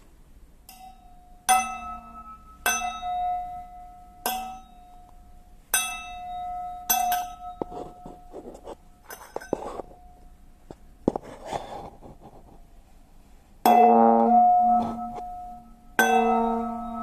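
A metal spoon hung on kite string being struck, ringing like a small bell with a clear high tone, about five strikes in quick succession. A stretch of rough scraping and rustling follows, then two louder, fuller and deeper rings near the end.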